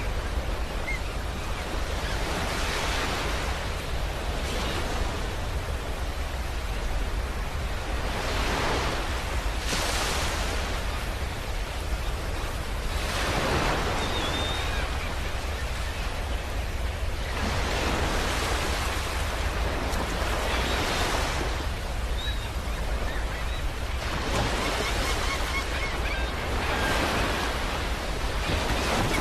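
Sea surf washing onto a sandy beach, with waves surging in every few seconds over a steady low rumble.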